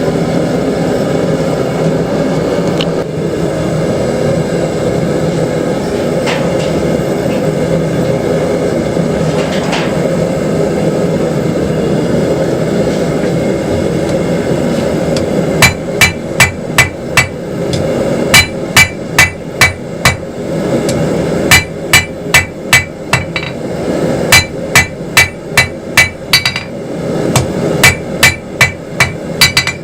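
Hand hammer drawing out a taper on hot 3/8-inch square steel bar stock on an anvil: from about halfway, runs of six to nine quick ringing blows, roughly three a second, with short pauses between runs. Beneath it, and alone for the first half, a steady low rushing noise from the forge.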